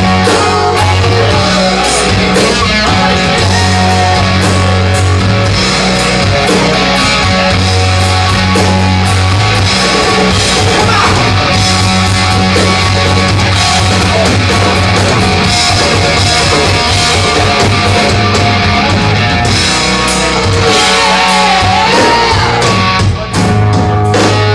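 Live hard rock band playing loud: electric guitars over held bass notes and a drum kit, with a brief drop in the sound about 23 seconds in.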